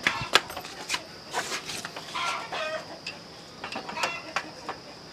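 Chickens clucking in short, repeated calls, mixed with sharp metal clicks and knocks from motorbike clutch parts and tools being handled.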